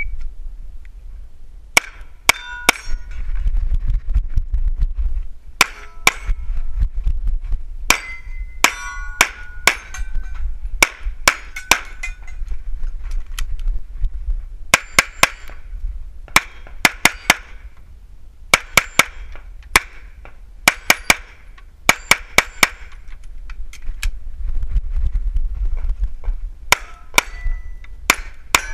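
Pistol shots fired in quick strings of two to six, with short pauses between them, many followed by a brief metallic ring of hit steel targets.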